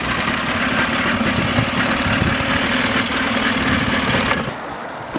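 Outboard motor running steadily with its cowling off, a busy mechanical rattle, until it drops away about four and a half seconds in.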